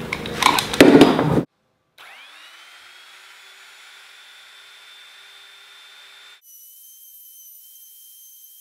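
A brief loud clatter, then an electric router motor starts about two seconds in, spinning up to a steady high whine, and runs on while routing out a hinge recess in a timber door jamb.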